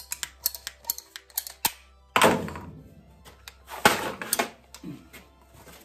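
Clicks, taps and knocks of hand tools working on a gas furnace's metal cabinet, with two louder thunks about two and four seconds in.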